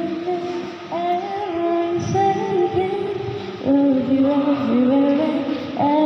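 A girl singing a slow English love ballad into a microphone, in long held notes that slide between pitches, with acoustic guitar accompaniment.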